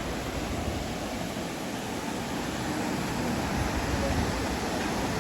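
Waterfall: a steady rush of falling water with a deep rumble underneath.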